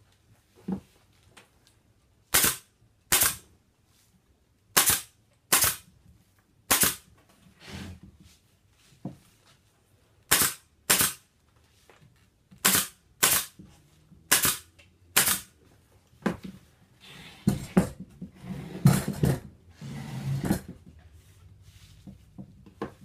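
Pneumatic upholstery staple gun firing staples through bonded polyester padding into the wooden chair frame: about a dozen sharp shots over the first fifteen seconds, often in quick pairs. After that comes a few seconds of rustling and handling noise as the padding is worked by hand.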